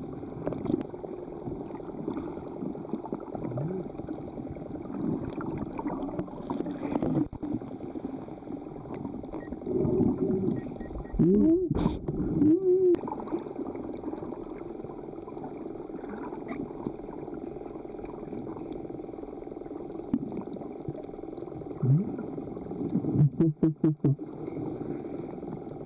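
Underwater sound picked up by a camera during snorkeling: a muffled, steady rush of water and bubbles. Short, low swooping sounds stand out near the middle and again near the end.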